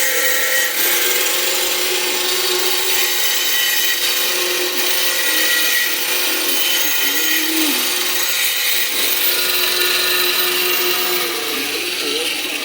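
MIG welding arc on scrap steel, running steadily as a continuous noisy hiss and stopping near the end.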